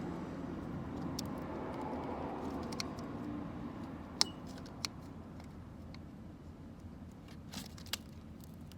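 A few sharp clicks and clinks of tools or parts being handled during manual gearbox repair work, over a low rumble that slowly fades. The loudest click comes about four seconds in, with more near five and eight seconds.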